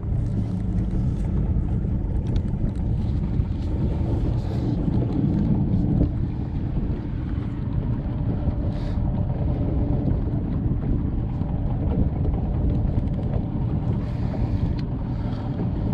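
Bass boat's outboard motor running steadily under way, with wind buffeting the microphone.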